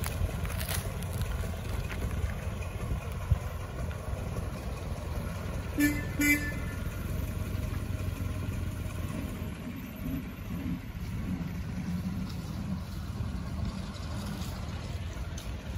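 1927 Ford Model T's four-cylinder engine running as the car drives off, with two short toots of its horn about six seconds in.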